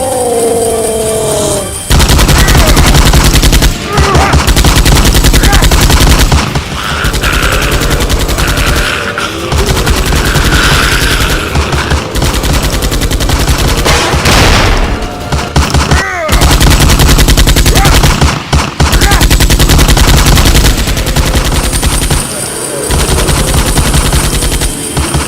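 Rapid automatic gunfire, the action-movie kind, in long continuous bursts with a few short breaks between them.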